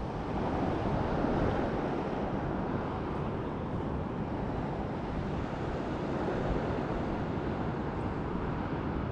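Small sea waves washing on the shore: a steady rushing surf noise, swelling slightly a second or so in.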